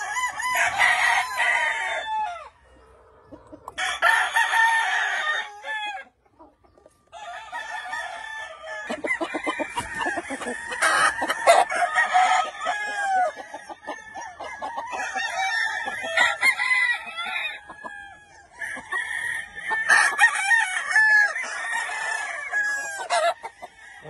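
Gamefowl roosters crowing, many calls overlapping one after another, with a short break about six seconds in.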